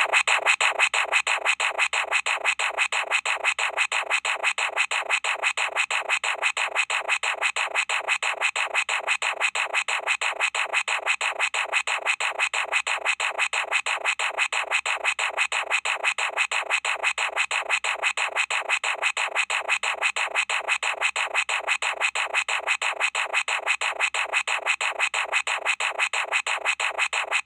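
A Bop It game sound made into an iPhone ringtone: electronic music of fast, even pulses repeating without a break, cutting off abruptly at the end.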